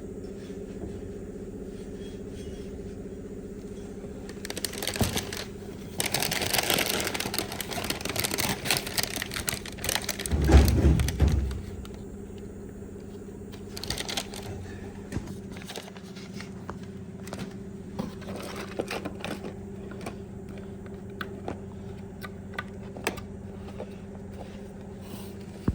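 Clicks and light knocks of small parts being handled during a steering column overhaul, over a steady hum. A busier stretch of scraping and rattling comes in the middle, with a low thump that is the loudest sound.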